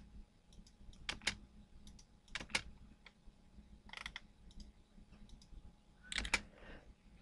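Faint computer mouse clicks and keyboard key presses, coming singly and in quick pairs with pauses between.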